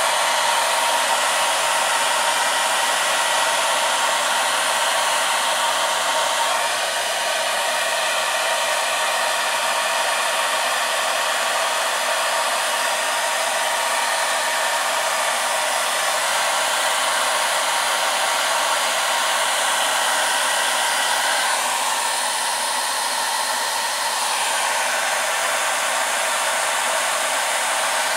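Handheld hair dryer running steadily, with a slight change in its sound a couple of times.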